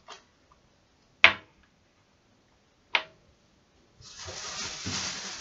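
Three sharp clicks of small perfume bottles and dropper caps being handled, the last one ringing briefly. About four seconds in, a steady rushing hiss starts and keeps on.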